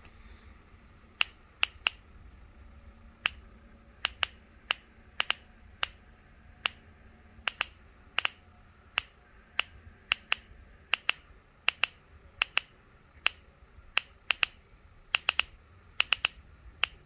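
Ignition spark snapping across the gap of a Thexton spark tester fed by an old Mercury outboard ignition coil, as the distributor trigger fires it: sharp irregular snaps, often in quick pairs, about two a second. The spark is there but not as bright as it should be.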